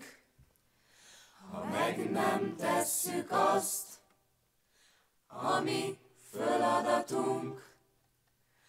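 A small mixed group of young men and women singing in Hungarian in unison without accompaniment: two phrases with short pauses between them.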